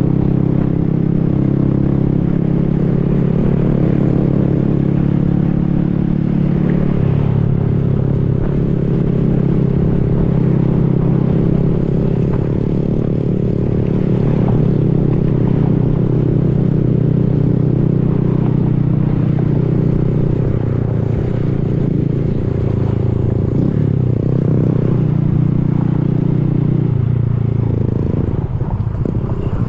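Honda Grom's 125 cc single-cylinder four-stroke engine running while riding, holding a steady pitch for stretches and shifting up and down with throttle and gear changes.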